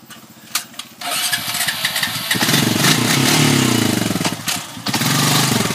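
Trail motorbike engine started with the electric start button, catching about a second in, then revved up and down under the throttle before settling briefly and revving again.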